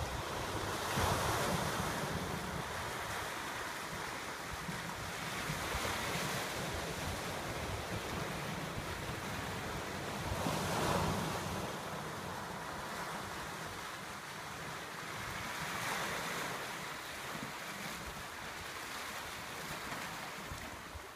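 Ocean surf breaking over rocks and washing through kelp beds, swelling about every five seconds as each wave comes in. Wind buffets the microphone with a low rumble, mostly in the first half.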